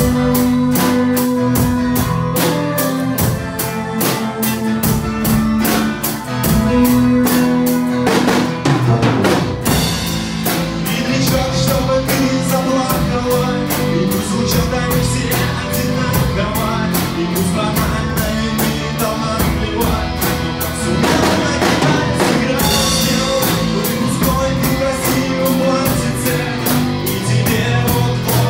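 Rock band music, an instrumental passage of a song: a drum kit keeping a steady beat under bass and guitar.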